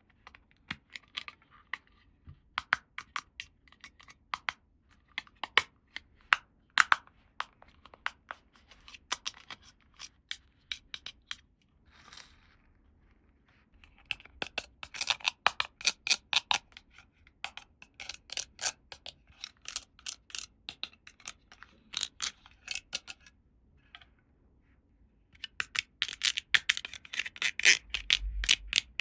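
Small plastic toy pieces and their packaging being handled at close range: runs of sharp clicks and crinkles with short pauses between them, the densest runs about halfway through and near the end.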